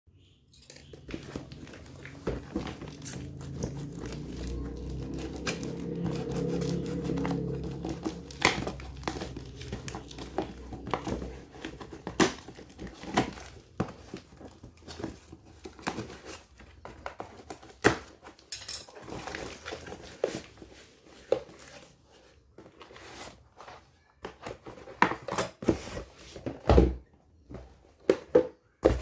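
Handling noise: crinkling and rustling with irregular clicks and knocks as packaging and small parts are handled close to the microphone, over a low rumble during the first ten seconds or so.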